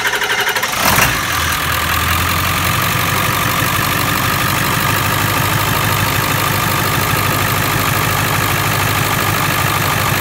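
Ford 7.3-litre Power Stroke V8 turbo-diesel turning over on the starter, catching about a second in and settling into a steady idle. It is the long crank of a diesel whose high-pressure oil system is still being purged of air after its high-pressure oil pump lines were replaced.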